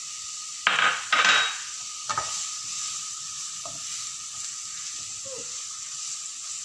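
Crushed onion, ginger and garlic sizzling in hot oil in a nonstick kadai while a wooden spatula stirs and scrapes through it. There are a few louder scrapes and knocks about a second in.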